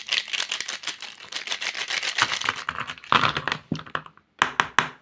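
A handful of plastic Doms felt-tip sketch pens clattering and rattling as they are spilled out onto a paper worksheet, followed near the end by three separate sharp clicks as single pens are set down.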